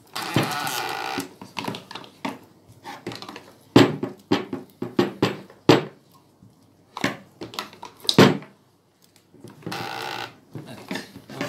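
Plastic filter housing wrenches working the filter housings of an under-sink water purifier as they are tightened. There are two rasping scrapes of plastic on plastic, about a second long, at the start and near the end, and about eight sharp clacks and knocks in between.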